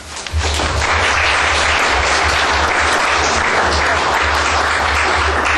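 Audience applauding. The clapping builds quickly just after the start, then holds steady and dense.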